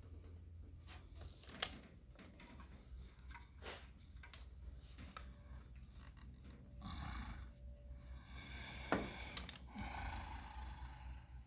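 Faint clicks and short scraping sounds of parts and tools being handled, over a steady low hum.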